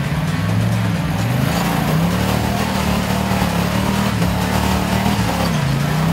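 Engine of a Suzuki rock crawler revving under load as it climbs over boulders. The revs drop and climb back up about a second in and again near the end.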